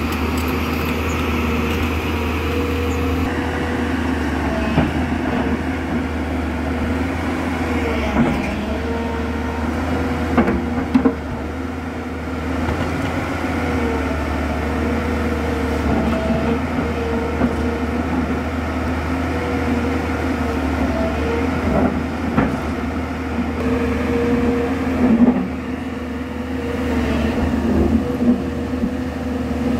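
JCB crawler excavator's diesel engine running steadily under load with a droning hydraulic whine that wavers as the arm and bucket work. The bucket digs at the rock face, with a few sharp knocks and scrapes of stone against the steel bucket scattered through.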